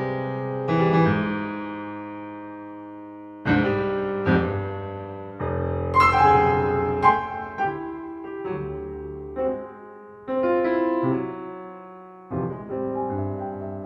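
Solo piano playing a slow modern classical piece. A chord struck about a second in rings down for a couple of seconds, then chords and single notes follow one after another, each left to sustain and fade.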